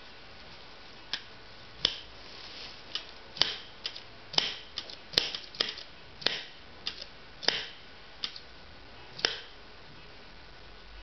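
A dozen or more irregular clicks and taps, like small hard parts being handled and set down, stopping after about nine seconds.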